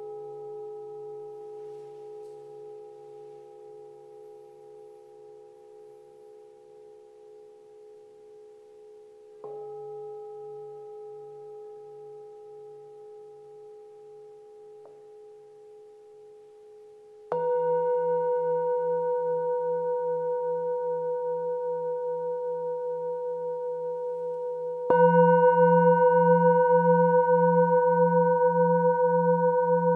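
Metal singing bowls struck one at a time with a wooden mallet, each ringing on for several seconds with a slow wavering pulse in its low tone. A bowl is already ringing at the start, and new strikes come about a third of the way in, just past halfway and about five seconds before the end, the last two louder.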